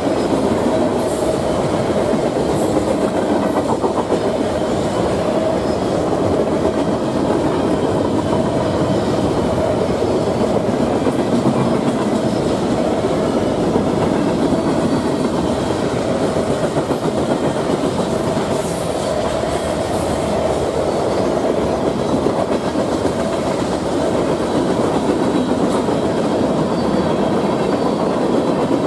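Freight train cars rolling past at steady speed: a continuous rumble and clatter of steel wheels on the rails, holding an even level throughout.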